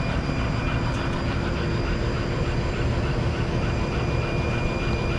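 Laser engraver running a raster engraving job on acrylic: steady whirring machine and exhaust-fan noise with a constant hum.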